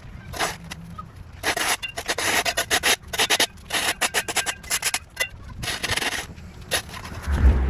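Flat steel shovel scraping across a concrete sidewalk, pushing up edged-off grass clumps and sandy dirt. It is a series of about half a dozen rough strokes of a second or less each, with short pauses between.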